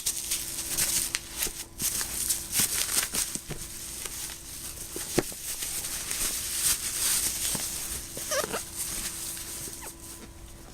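Phone packaging being handled as a phone is lifted out of its box: irregular clicks, taps and rustles of cardboard and plastic wrap, with a brief squeak about eight seconds in.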